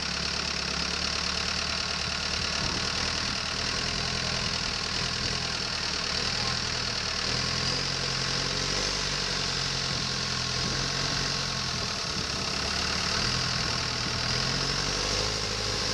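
Tour boat's engine running steadily, with a constant hiss above it.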